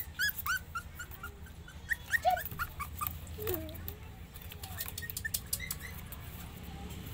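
Young puppies whimpering and squeaking: a quick run of short, high, rising-and-falling squeaks over the first few seconds, then a few sparser, lower whines. Scratchy rustling and clicks run alongside.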